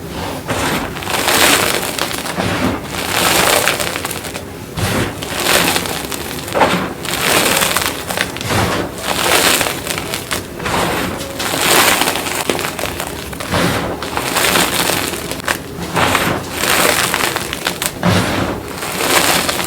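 Gym chalk being crumbled and crushed, a crunchy, glassy crackling that swells in repeated surges about every one and a half to two seconds.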